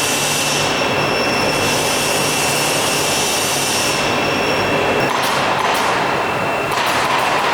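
CNC nesting router working on wood panels: a loud, steady whirring noise with a high, steady spindle whine that drops away about two thirds of the way through.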